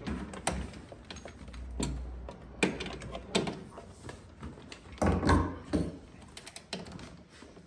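Ratchet wrench worked on a bolt behind a Jeep fender, with irregular clicks, knocks and rattles of the tool and metal hardware, and a few louder knocks midway and about five seconds in.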